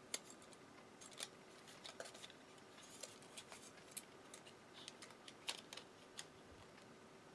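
Faint, irregular small clicks and ticks of a cassette walkman's plastic and metal parts being handled and pried at during disassembly.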